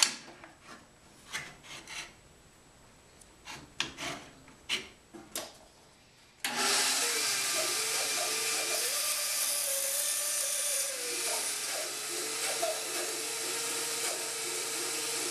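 A few light clicks and knocks as a wooden tube-cutting jig holding a brass tube is set up on the table of a small bench-top band saw. About six seconds in, the band saw starts suddenly and runs steadily. Its hum wavers for a few seconds as the jig is pushed through the blade, cutting the tube.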